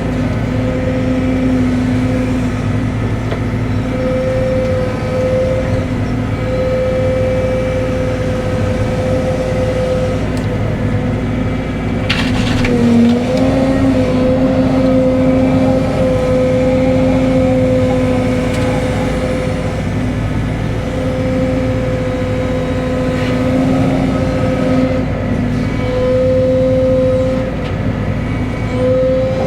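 Cat 313 excavator's diesel engine and hydraulics running steadily, the pitch dipping briefly under load and recovering about thirteen seconds in, with a sharp knock just before the dip.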